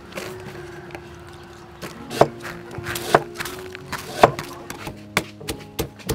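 Stone pestle knocking in a stone mortar: three sharp knocks about a second apart, then a quicker run of lighter knocks near the end.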